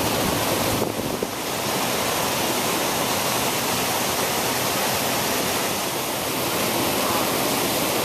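Rain-swollen, muddy stream pouring over rapids and small falls: a steady, even rush of water.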